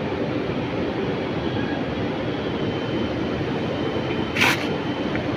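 Steady din of sugar-mill machinery. About four seconds in there is one short, sharp hiss as the red sampling valve on the vacuum pan is worked.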